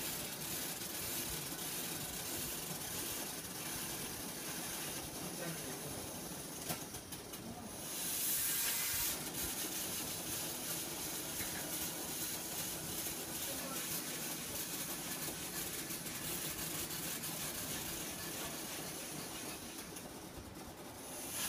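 Steady hiss of lab machinery, with a louder rush of hiss about eight seconds in that lasts around a second and a half, and another starting near the end.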